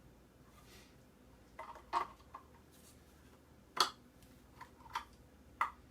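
A handful of light clicks and clinks from small pieces of metal and plastic scrap being handled and picked apart, the sharpest a little before four seconds in.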